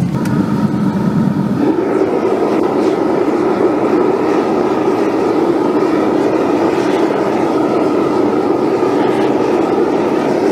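Propane-fired foundry furnace burner running with a steady rushing noise, heating a crucible of bronze to melting. The noise grows stronger about two seconds in.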